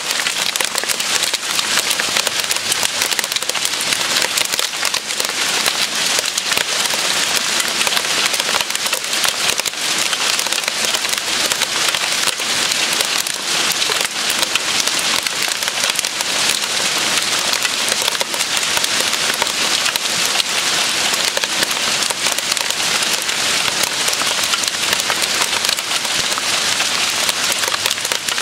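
Hail falling steadily on kale plants and garden soil: a dense, even stream of many small hits.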